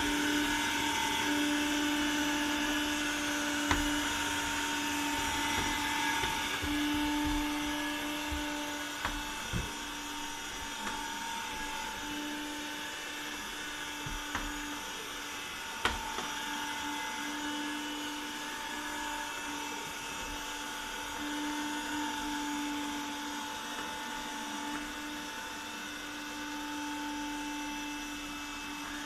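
Cop Rose window-cleaning robot running on the glass: its suction motor gives a steady whine that swells and fades every few seconds as it moves across the pane, with a few short knocks.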